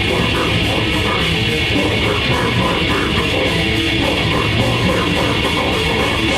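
Live grindcore band playing a song at full volume: heavily distorted electric guitars, bass and drums in a dense, unbroken wall of sound.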